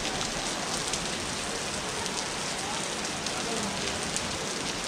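Steady hiss of falling, splashing water with a fine patter of drops.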